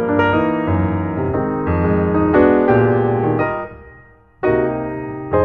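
Background music: piano chords, dying away briefly about four seconds in before the next chord is struck.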